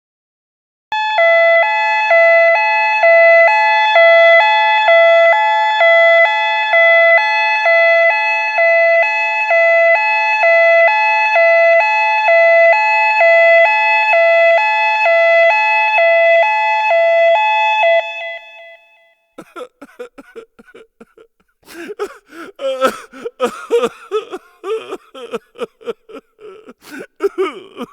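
European-style two-tone emergency-vehicle siren, alternating between a high and a low note in an even rhythm; it stops after about eighteen seconds. A different, irregular choppy sound with clicks and voice-like bits follows.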